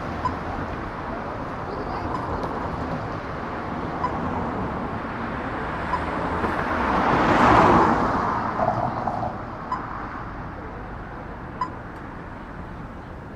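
City street ambience: a steady hum of traffic, with a vehicle passing by, loudest about seven to eight seconds in, and a few short sharp clicks.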